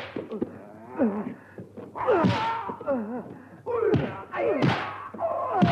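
Fight sounds from a martial-arts film: shrill, pitch-bending battle cries and yelps come several times, each with a punchy dubbed impact thud or smack from the blows. There are about five in all, at roughly one-second intervals.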